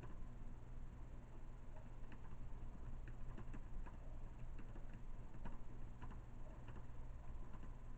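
Light, irregular clicks of typing on a keyboard, over a steady low hum.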